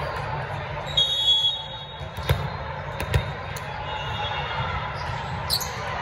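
Volleyballs knocking sharply a few times, about two to three and a half seconds in, over the echoing chatter and hubbub of a large sports hall. A short high squeak or whistle sounds about a second in.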